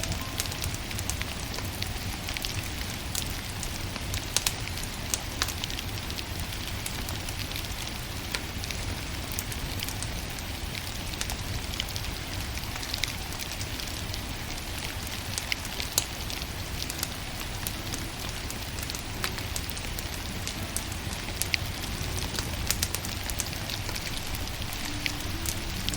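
Wood fire crackling, with frequent sharp pops and snaps over a steady hiss and low rumble; a few soft music notes come in near the end.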